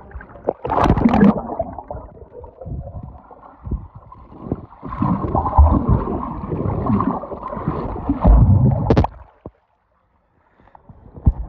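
Muffled underwater sound of swimming-pool water picked up by a submerged phone microphone: gurgling, bubbling and sloshing. There is a splash about a second in, a louder churning stretch in the middle, and a sharp splash just before the sound cuts out completely for a moment.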